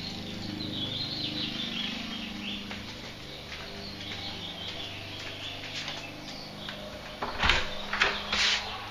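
Interior door being handled and opened: a few loud knocks and clatters near the end, over faint, wavering high chirping earlier on.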